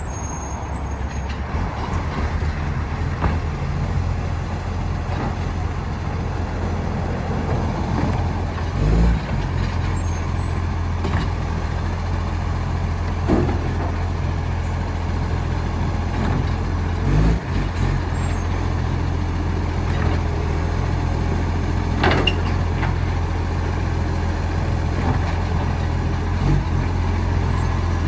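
Recycling garbage truck's diesel engine running steadily, a truck whose exhaust is leaking, with a few short knocks and clunks over it.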